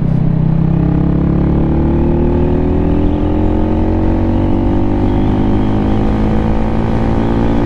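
Lifan KPM 200's single-cylinder engine pulling the motorcycle up to speed, its pitch rising slowly and steadily as it accelerates.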